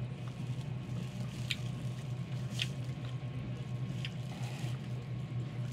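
Close-miked eating of fried chicken: wet chewing and mouth smacks with a few sharp clicks, over a steady low hum.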